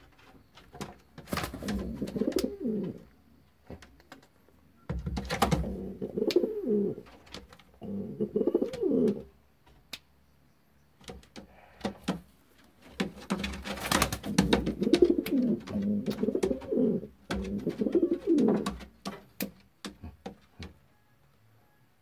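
King pigeon cooing in about five bouts of a few seconds each, a low coo that glides down in pitch at the end of each bout, with quiet gaps between. Scattered sharp clicks, more of them near the end.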